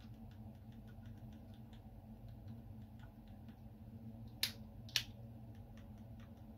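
Two sharp plastic clicks about half a second apart from a Ford flip-key remote being handled, among faint small handling ticks, over a low steady hum.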